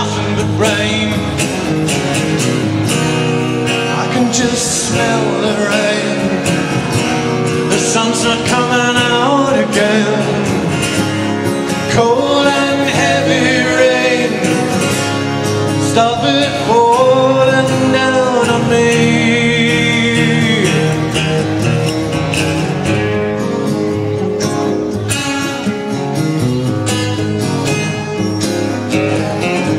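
Live band music: acoustic and electric guitars playing, with a voice singing a wavering melody line over them.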